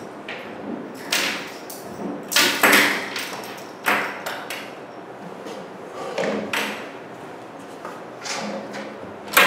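Several sharp thumps and knocks a second or more apart, some loud, from a wardrobe's doors being handled.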